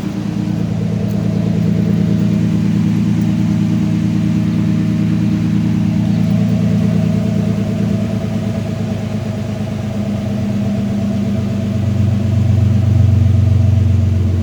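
A 1988 Chevrolet S10's 2.8 V6 running steadily through a freshly installed knockoff Flowmaster exhaust, single in and dual out. The exhaust note swells a little louder near the end.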